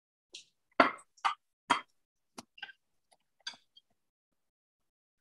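A knife clicking and tapping against a plate while a rice ball is cut open. There are about eight short, sharp taps in the first three and a half seconds, then quiet.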